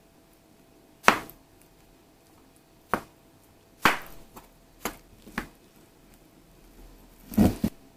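Metal spoon cutting through a fried egg and Spam slices in a metal lunchbox, striking and scraping the tin's bottom in sharp clinks spaced about a second apart, with two in quick succession near the end.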